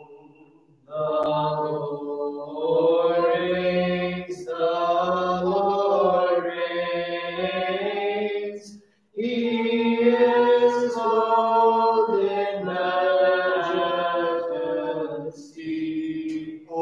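Voices chanting a Byzantine vespers hymn a cappella in long held phrases, with a short pause about nine seconds in.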